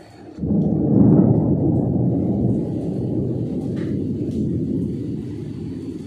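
Thunder: a loud, low rumble that breaks in suddenly about half a second in, is loudest about a second in, then rolls on, slowly fading.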